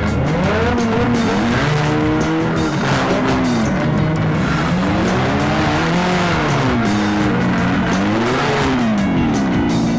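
Car engines revving, their pitch rising and falling again and again, with music underneath.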